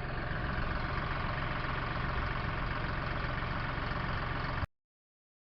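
Vehicle engine running steadily, then cut off suddenly to silence near the end.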